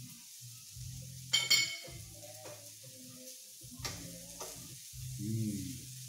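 Meat and vegetables sizzling faintly on a raclette grill's top plate. About a second and a half in, a metal utensil gives a sharp ringing clink against the grill or a plate.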